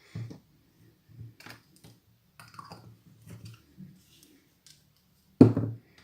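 Slime being stirred with a plastic stick in a small container: irregular light clicks and scrapes, with one louder knock near the end.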